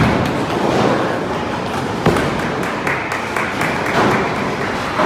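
Bowling ball released onto the lane with a thud, then rolling toward the pins. There is another sharp knock about two seconds in.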